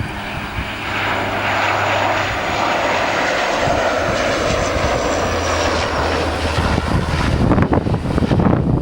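Dash 8-400 turboprop's Pratt & Whitney PW150A engines and propellers passing close by on landing: a steady propeller hum under engine noise that swells about a second in, with a high whine slowly falling in pitch. Gusty wind buffets the microphone from about seven seconds in.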